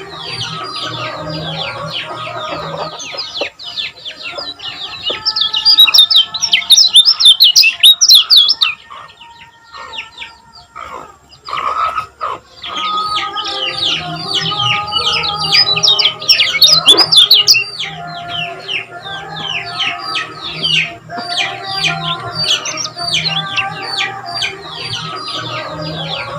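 Kecial kuning white-eyes chirping in fast, dense twittering runs. The chirping is loudest about five to eight seconds in, and there is a short lull near the middle.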